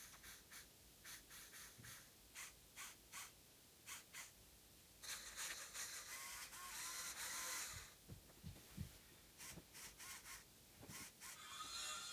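Faint clicking of a Lego Technic forklift's small electric motors and plastic gears, two or three ticks a second. A few seconds of whirring follow in the middle, then a few low knocks as it moves.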